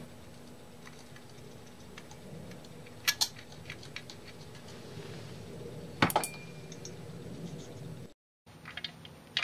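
Faint clicking and clinking of small metal parts as a screw and slot nut are fitted to a metal L bracket with a screwdriver, with two sharper clicks about three and six seconds in.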